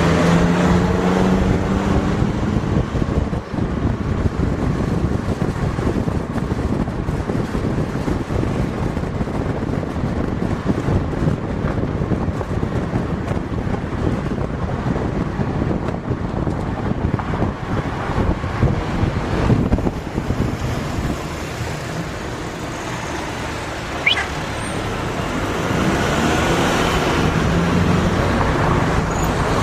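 A car driving along a city street: steady engine and road noise, with the engine note coming through more clearly at the start and again over the last few seconds.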